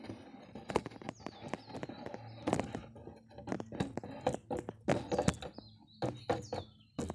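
A few short bird chirps, over irregular sharp clicks and knocks.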